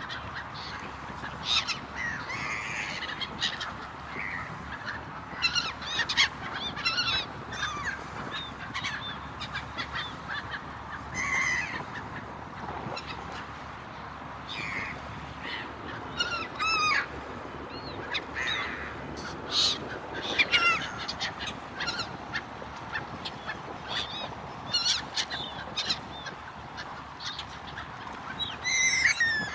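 Gulls calling again and again, short squawks and wavering cries, over the steady rushing background of a ferry under way.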